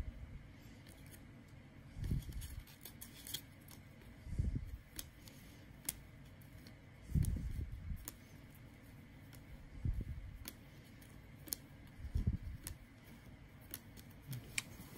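A stack of 1993 Topps baseball cards being flipped through by hand, each card slid off the front and tucked behind the rest: a soft rubbing sound about every two to three seconds, with light clicks from the card edges.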